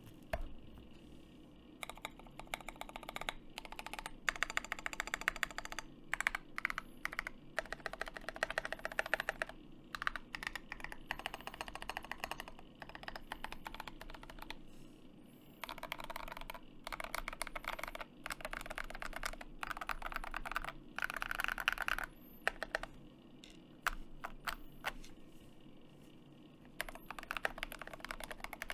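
Typing on an IDOBAO ID80 aluminium-plate, top-mount mechanical keyboard with lubed JWK Mauve linear switches and SA-profile keycaps. The key clicks come in fast bursts of typing, several seconds long, with short pauses between them.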